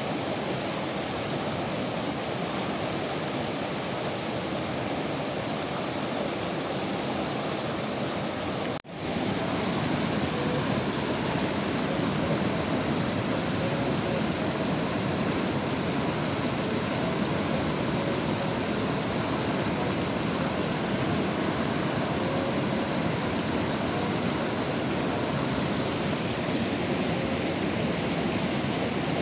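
Rushing whitewater river rapids: a steady, full roar of water over rocks. The sound cuts out for an instant about nine seconds in and resumes slightly louder.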